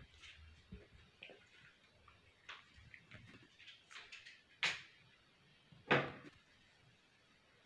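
A few soft taps and rustles, then two louder knocks, about four and a half and six seconds in.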